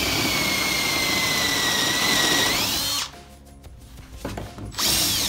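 Handheld power drill turning a conical step bit as it cuts into a metal plate: a steady whine with a cutting hiss for about three seconds, its pitch rising just before it stops, then a second short burst near the end.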